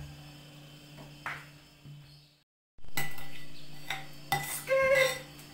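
Metal spoons scraping and clinking against a ceramic bowl and drinking glasses as whipped dalgona coffee is scooped onto glasses of iced milk. There is a brief dropout about halfway, and the clinks after it are louder, a few of them ringing briefly.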